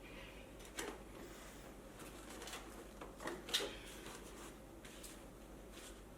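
A few light knocks and clatters of parts being handled during reassembly of an electric unicycle, once about a second in and a small cluster a little past the middle, the last the loudest, over faint room background.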